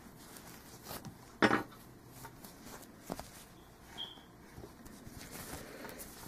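Handling noise from hands turning a crocheted hat close to the microphone: faint rustling with a few light knocks, the loudest about one and a half seconds in.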